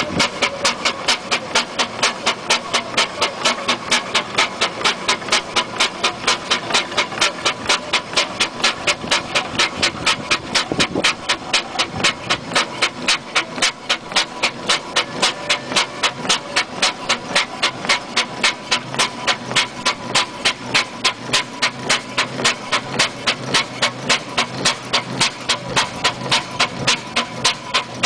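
1916 Aveling & Porter steam road roller running, its exhaust chuffing in an even, steady beat of about three a second.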